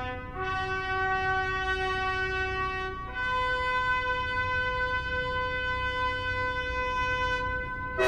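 Title music: a slow brass fanfare of long held notes over a low sustained drone, the melody stepping up in pitch twice.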